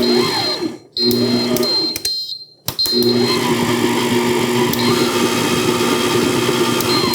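A Vevor 600-watt stand mixer's motor running steadily, cutting out briefly twice in the first few seconds.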